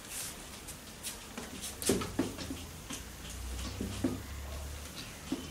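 Cloth duster rubbing writing off a whiteboard, with short scrapes and knocks. A low hum sets in about two seconds in and stops near the end.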